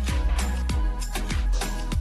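Background music with a steady beat and deep bass kicks that fall in pitch.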